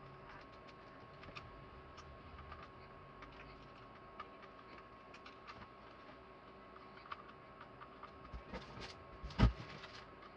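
Scattered small clicks and taps of a hair dryer's parts being handled and fitted back together, with one louder knock about nine seconds in.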